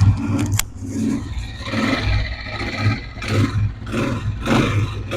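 125 cc motorcycle engine running for a sound check after a repair for engine noise, its sound swelling and dipping in short pulses about once or twice a second, with a sharp click near the start.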